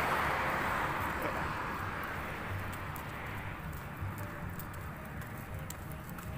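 A passing vehicle on the road, fading away over the first few seconds, leaving a low rumble and faint scattered ticks.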